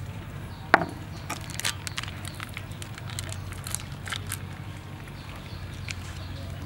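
Crinkling and rustling of a plastic seasoning sachet being handled and torn open, in short scattered clicks, with one sharp tap about a second in.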